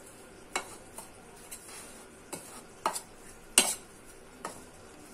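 Metal spoon stirring dry gram flour and spices in a bowl, clinking against the bowl's side about five times, the loudest clink about three and a half seconds in.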